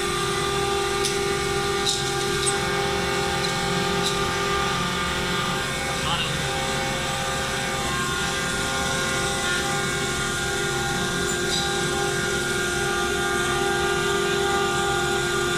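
CNC router spindle running with a steady whine of several fixed pitches while its cutter mills aluminium composite panel, with a few faint ticks in the first few seconds.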